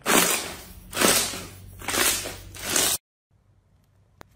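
Hands squeezing and kneading a large mass of clear, bubbly slime: four crackling squelches about a second apart, then the sound cuts off abruptly.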